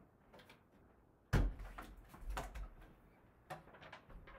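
Knocks and bumps from a wooden cabinet being handled: one sharp thump about a second and a half in, with a low rumble after it, then a few lighter knocks.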